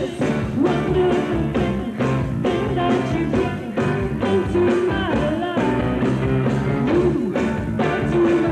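Live rock band playing a song with a woman singing lead into a handheld microphone, over electric guitar and a steady drum beat about twice a second. The sound is dulled and hissy from an old VHS tape copy.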